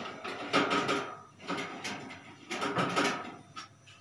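A wooden pizza paddle clattering and scraping against the metal pan and walls of a small stainless-steel oven as a pizza is turned, in several bursts.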